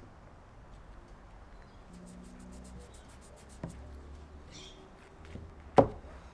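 Metal spring clamps being fitted onto small glued wooden blocks: a quick run of light ticks, a single click, then a sharp loud clack near the end as a clamp is let go onto the work. A low hum runs underneath.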